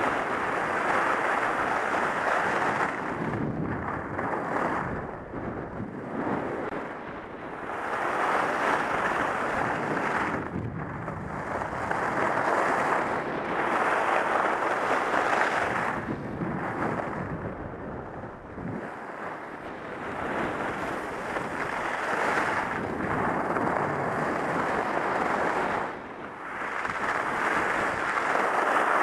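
Wind rushing over a helmet-mounted camera's microphone while skis run over groomed snow, a steady rush that swells and fades every few seconds as the skier turns and changes speed.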